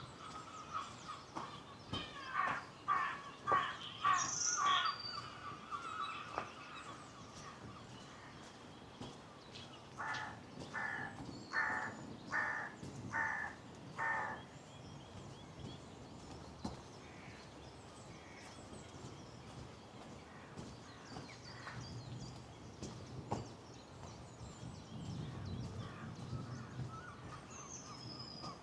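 A bird giving two runs of harsh, evenly spaced calls, about six in each run at roughly two a second. One run comes about two seconds in and the other about ten seconds in. Faint high chirps from smaller birds are heard at the start.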